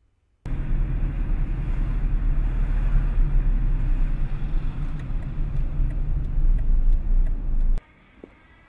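Steady, loud low rumble of a car in motion, engine and road noise together. It starts abruptly about half a second in and cuts off abruptly near the end.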